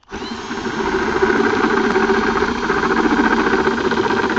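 Handheld power drill starting up and running steadily, its 3/4-inch bit grinding into the side of a plastic jug to enlarge a hole. It starts suddenly and builds over the first second.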